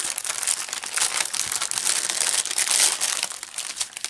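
Clear plastic packaging crinkling as it is pulled open by hand around a bundle of small plastic bags of diamond-painting drills, dying down near the end.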